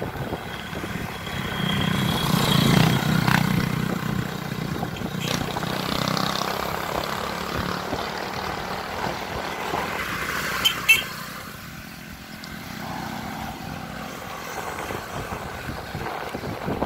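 Wind and road noise from a moving bicycle, with a motorcycle engine passing a couple of seconds in. A pair of sharp clicks comes about two-thirds of the way through.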